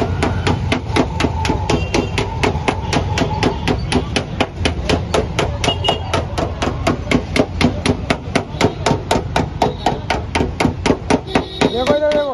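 A hammer tapping rapidly and steadily on a car's sheet-metal body panel, about four strikes a second, as a dent is worked out in paintless dent repair.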